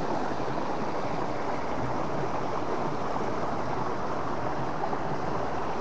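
Fast-flowing river water rushing steadily past.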